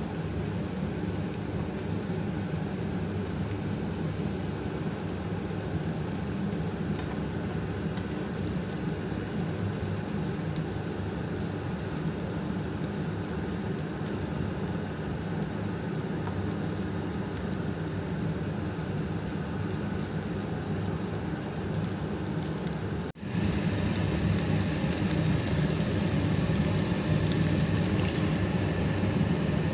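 Stuffed green peppers sizzling in oil in a frying pan, a steady sizzle that jumps louder after a cut about 23 seconds in.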